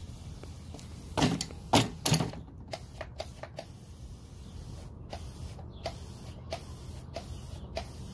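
Clicks and knocks from handling the Harbor Freight electric pressure washer, its motor not running after the over-voltage run. Three louder knocks come about a second in, then lighter irregular clicks.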